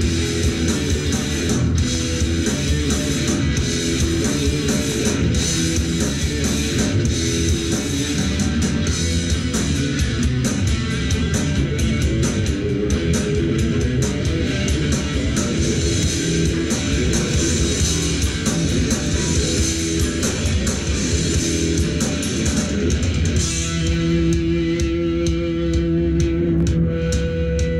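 Rock band playing live: electric guitars, bass guitar and drums, loud and steady. About 23 seconds in, the guitars settle into long held notes.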